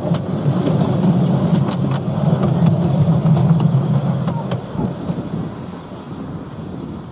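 Miniature railway train rumbling along the track: a steady low rumble with a few sharp clicks, fading away from about four and a half seconds in.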